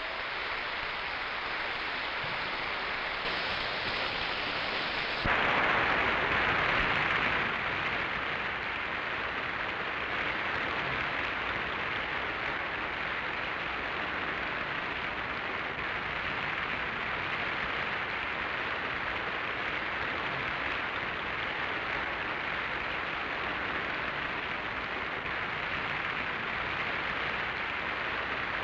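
Concert-hall audience applauding, swelling about five seconds in and then holding steady.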